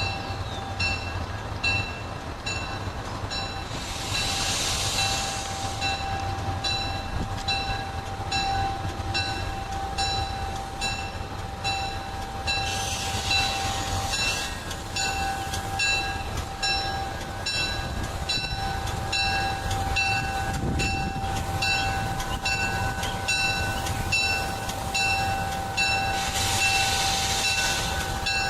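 MARC commuter train's bell ringing steadily, about one and a half strikes a second, over the low running of the locomotive as the train backs slowly into the station. Three short hisses break in, about four seconds in, near the middle and near the end.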